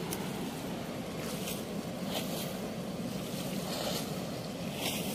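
Steady rush of water pouring through a weir's sluice gate, with faint hissy surges every second or so.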